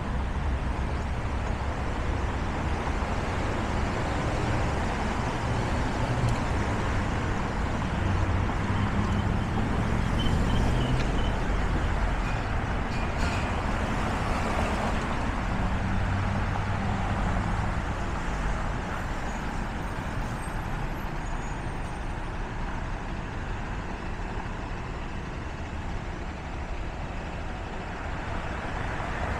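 Steady city-street traffic: car and truck engines and tyres passing on a busy arterial road. The low engine rumble swells through the middle as vehicles pass close, then eases a little. There is a short click about 13 seconds in.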